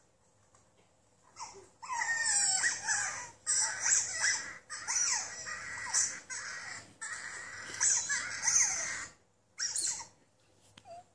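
Recorded otter calls played back: fast high-pitched squeaks and chirps in long runs broken by short gaps, starting after about a second and a half.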